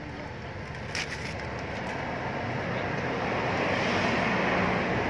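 A passing motor vehicle's engine and road noise, growing steadily louder as it draws near. A single short click about a second in.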